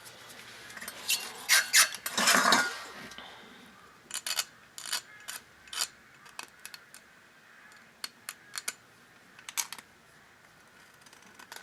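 Utility knife blade scraping old sealant off the mating face of a scooter engine's crankcase half: a longer scrape about two seconds in, then a run of short, sharp scrapes and clicks.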